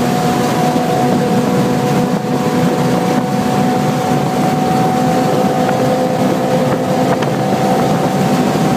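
Honda S2000 engine with an HKS exhaust and test pipe, running at high revs at about 235 km/h, heard from inside the cabin over wind and road noise. It is a steady drone that holds an almost constant pitch while the car gains speed slowly.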